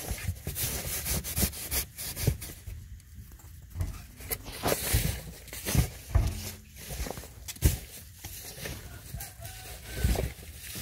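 A litter of young puppies whimpering faintly, amid repeated sharp knocks and rustling.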